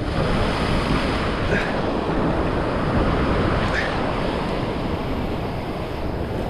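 Sea surf washing against shoreline rocks: a steady rushing noise, mixed with wind on the microphone.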